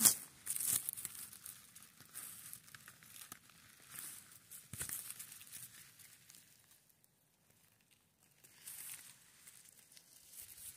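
Hands rustling and crackling through dry grass and moss while picking mushrooms, with a sharp snap right at the start. It dies away to almost nothing for a couple of seconds past the middle, then resumes faintly.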